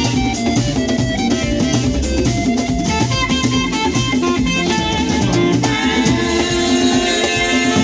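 Live band music: an alto saxophone lead over electric guitar and a drum kit keeping a steady beat.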